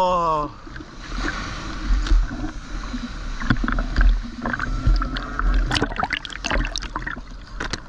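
Water sloshing and splashing against a GoPro's waterproof housing held at the sea surface, with a low rumble and the hiss of a breaking wave. Sharp splashing crackles come thick in the second half as the camera dips in and out of the water. A short rising call sounds at the very start.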